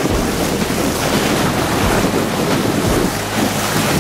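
Choppy sea waves washing and splashing against the rock jetty, with wind buffeting the microphone in a steady low rumble.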